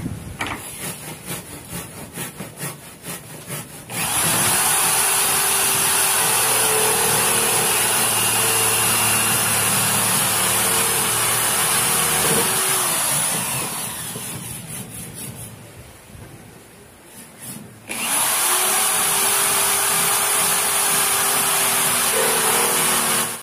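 Small electric power tool cutting into PVC pipe. After a few seconds of quick scraping strokes, its motor spins up and runs steadily through the plastic, winds down, then starts again and runs until it stops abruptly.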